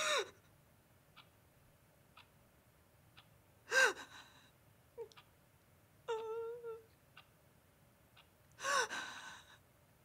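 A person crying: gasping sobs at the start, about four seconds in and near the end, with a drawn-out whimper in between. A clock ticks once a second underneath.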